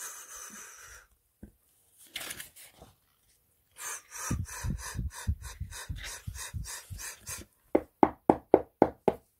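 A paper page turning, then a regular run of soft flapping beats, about five a second, for a few seconds. Then a quick run of about six sharp knocks. These are hand-made sound effects for the "flap" of a butterfly's wings and the "tape" of footsteps written in a children's picture book.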